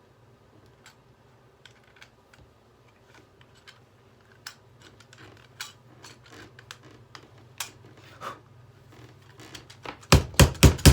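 Hairdryer being jabbed with a metal pry bar at its fan blades: irregular light clicks and ticks, coming more often as it goes on, over a faint low hum, then a quick run of loud knocks near the end.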